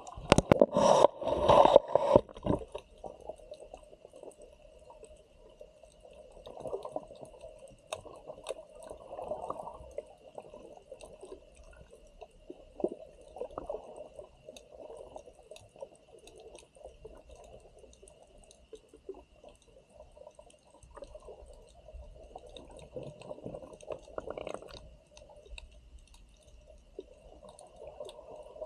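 Muffled water sloshing and bubbling, loud for the first two seconds or so, then quieter, with scattered faint clicks and a faint steady high tone.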